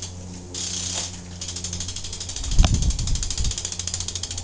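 BMX bike's rear freewheel clicking rapidly and evenly as the back wheel spins, with a heavy thump and a sharp knock about two and a half seconds in.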